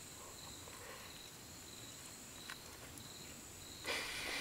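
Night insects chirping in a steady high-pitched trill, faint. Near the end a louder rustling noise comes in.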